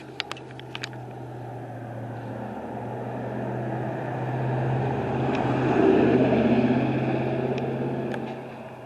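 A vehicle passing by, its noise building to a peak about six seconds in and then fading, over a steady low engine hum.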